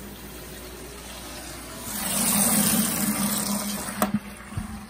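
Boiler water draining through a hose from the boiler drain valve into a bucket to bring down the system pressure. A steady hiss swells to a loud rush of water about two seconds in, then eases off. Two sharp knocks come about four seconds in.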